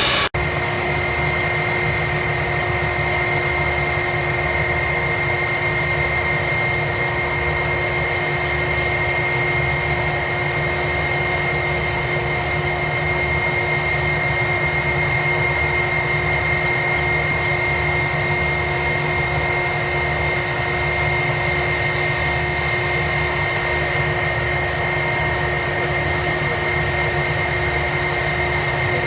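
Boeing 737-800's jet engines running at idle: a steady drone with a constant high whine over a low rumble.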